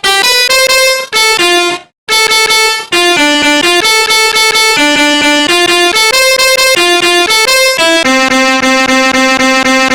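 Phone ringtone: an electronic melody of quick, bright notes, about three to four a second, repeating its phrase after a brief break about two seconds in.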